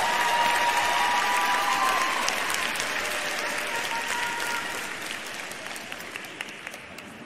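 Arena crowd applauding, the clapping fading away steadily over several seconds.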